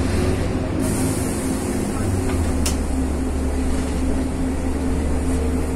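Inside a moving city bus: the steady low drone of the engine with road noise, a hiss coming in about a second in and a single sharp click near the middle.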